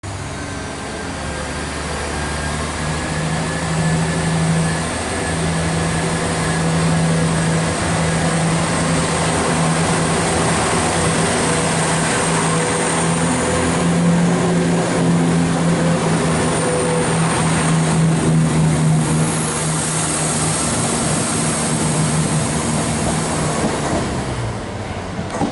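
Chiltern Railways Class 168 Clubman diesel multiple unit, its underfloor diesel engines droning steadily as the unit moves along the platform. The drone eases off near the end.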